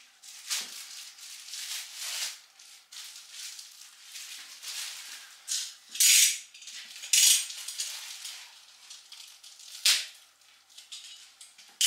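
Clear plastic wrapping crinkling and rustling in irregular bursts as a part is unwrapped by hand. The loudest bursts come about six, seven and ten seconds in.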